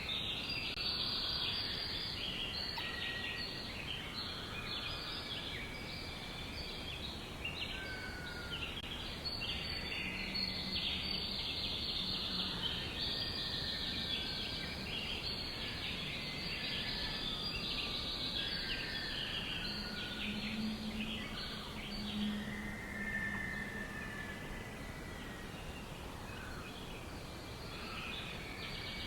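Many small birds chirping and twittering at once in a dense, continuous chorus of quick high notes, with a few longer whistled notes among them. A low steady hum comes in briefly twice.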